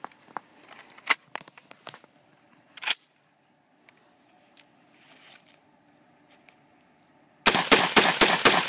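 Heckler & Koch G3 rifle in 7.62×51mm firing a rapid string of semi-automatic shots, about four a second, starting near the end. Before that there are a few clicks and knocks.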